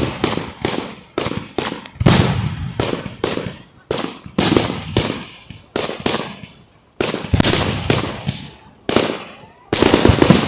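Aerial firework shells bursting one after another, about two to three sharp bangs a second, each trailing off in a brief echo.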